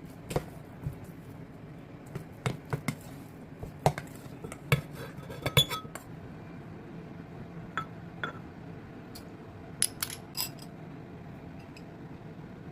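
Dishes and utensils clinking and tapping: about a dozen separate strikes of tableware against bowls or plates, a few ringing briefly, over a steady low hum.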